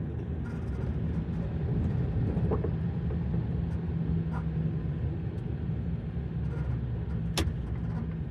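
Lorry engine running steadily, heard from inside the cab as a low hum, with one sharp click about seven seconds in.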